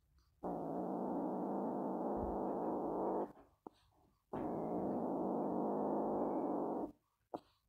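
Kitten growling to guard its toy from another kitten: two long, low, steady growls of about three seconds each, with a pause of about a second between them.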